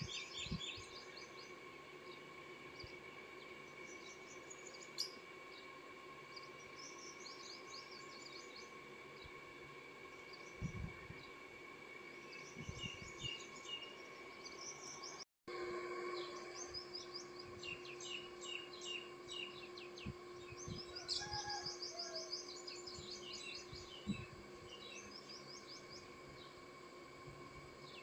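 Small birds chirping and twittering in quick runs, with a faint steady tone underneath. The sound cuts out for a moment about halfway through.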